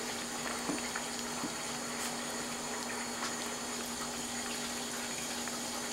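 A steady low hum with a hiss, over which a few faint soft clicks come from a cat eating wet food from a bowl.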